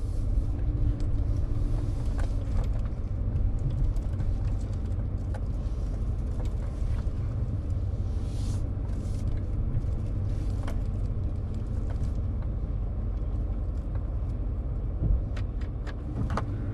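A car driving: a steady low rumble of road and engine noise, with a few light clicks.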